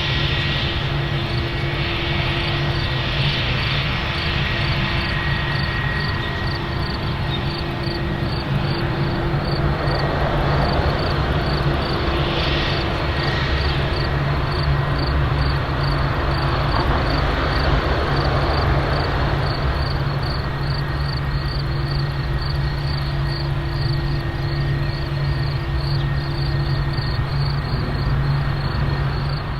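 Airplane engines running at steady power: a continuous loud drone with a steady low hum.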